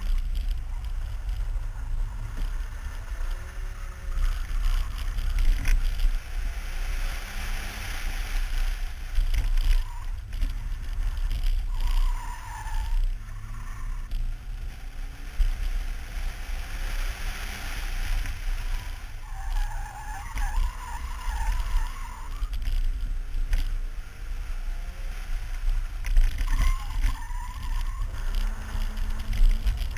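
BMW E30 318is's four-cylinder engine driven hard through a rallysprint course, with wind buffeting the microphone mounted outside the car. Tyres squeal briefly about a third of the way in and again for a couple of seconds about two-thirds of the way in.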